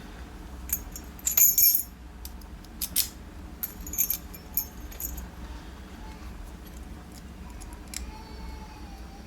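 Small metal tools and parts clinking against a Cisa Astral dimple lock cylinder as it is shimmed for disassembly. Clusters of sharp, ringing metallic clicks and jingles come in the first five seconds, then only quieter handling.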